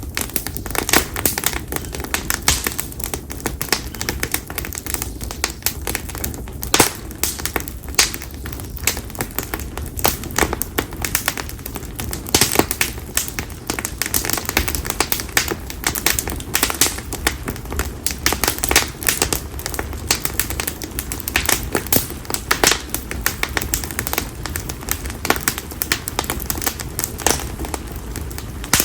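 Split konara oak firewood burning in a campfire, crackling and popping in quick, irregular snaps over a steady low rumble.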